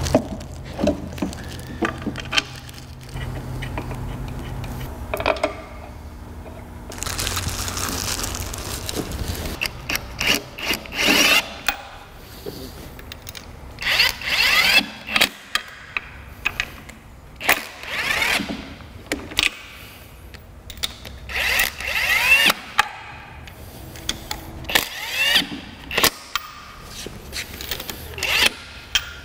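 Cordless drill-driver on a socket extension running bolts into an automatic transmission's bell housing in a series of short bursts, each rising in pitch as the motor spins up.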